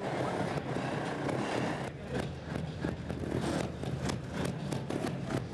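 Trials motorcycle two-stroke engine running steadily, with scattered sharp clicks and knocks from about two seconds in.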